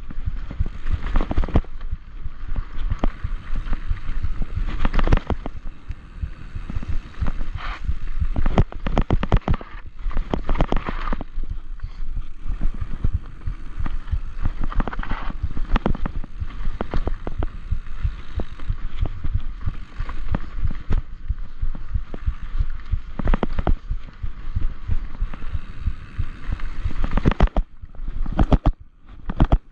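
Mountain bike descending rocky singletrack: a steady clatter of knocks and thumps as the tyres hammer over rocks and ruts and the bike rattles, over a low rumble of rolling noise, briefly quieter about two seconds before the end.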